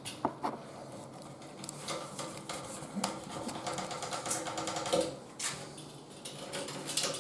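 Electric jigsaw running with a steady buzz as it cuts through a cabinet panel.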